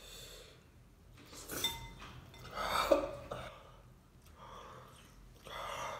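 A metal fork clinks against a glass bowl of noodles: a short ringing clink, then a sharp knock a little before three seconds in that is the loudest sound. Between them come puffs of heavy breath from a mouth burning on very spicy noodles.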